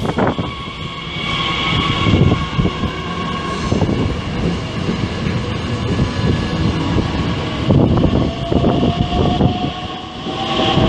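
A Bombardier Talent 2 electric multiple unit pulling away past the platform: a low running rumble with its wheels clattering over the rail joints, and an electric traction whine that rises in pitch near the end as the train speeds up.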